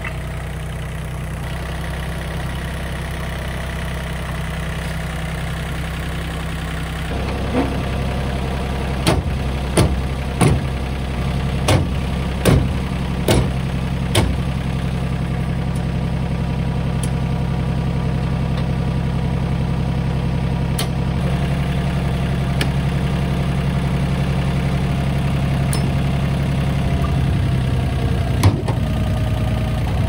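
John Deere 750 compact tractor's three-cylinder diesel engine idling steadily. Over it, a run of sharp clanks from about seven to fourteen seconds in, and two more later, from hitching a rotary mower and coupling its PTO driveshaft to the tractor.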